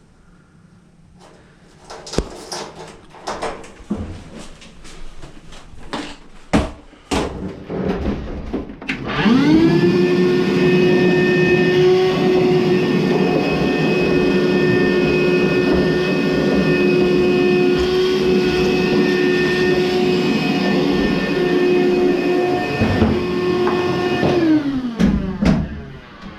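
Knocks and clatter of parts being handled, then the Frigidaire dryer's motor starts about nine seconds in. It spins up with a quickly rising whine, runs steadily with a hum and several steady whining tones, then winds down near the end.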